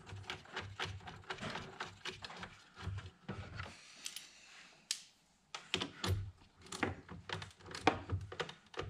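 Irregular plastic clicks and small metal clinks of hands working at a truck's under-hood fuse box (TIPM), fastening the battery power lead and handling a nut and tool, broken by a short silence about halfway.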